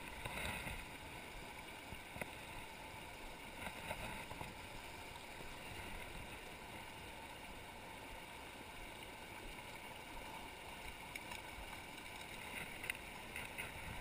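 Shallow mountain river rushing over stones and riffles: a steady, even sound of running water, with a few faint ticks.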